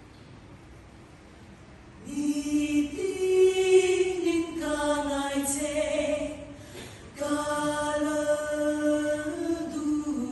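Mixed choir singing a cappella, coming in about two seconds in, with two long sung phrases and a short breath between them near the seventh second.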